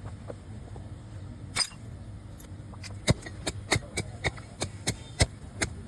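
One sharp knock, then a quick run of about ten sharp knocks, roughly three a second, over a low background rumble.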